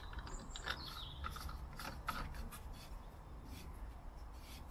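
Screw cap being twisted back onto a BMW's coolant expansion tank by a gloved hand. Faint rubbing and small clicks of the cap turning on its threads come in short, scattered scrapes.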